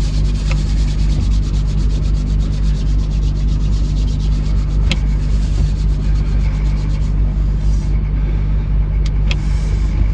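Vehicle engine running steadily at a constant speed, heard up close, with a fast even ticking over its hum and a few sharp clicks.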